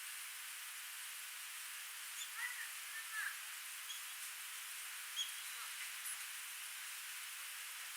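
Small stream running with a steady rush of water, with a few short bird chirps about two and a half to three seconds in and fainter chirps later.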